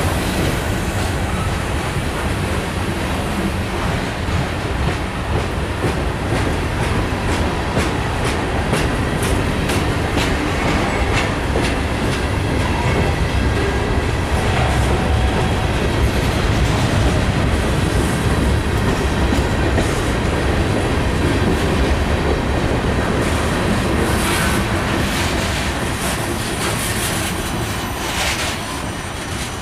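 Freight train of covered hopper cars rolling slowly past at about 10 mph for a speed restriction: a continuous rumble with the clickety-clack of wheels over rail joints and brief high metallic squeals, most of them near the end.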